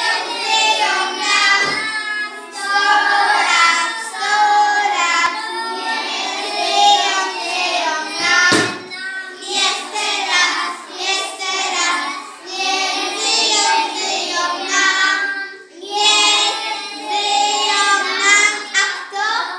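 A group of preschool boys singing a song together in unison, with a brief knock about halfway through.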